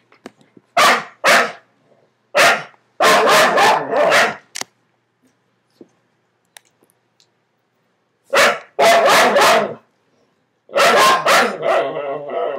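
Two dogs barking at each other, one of them under a bed. The barks come in quick runs of two to five, with a quiet gap of about four seconds in the middle.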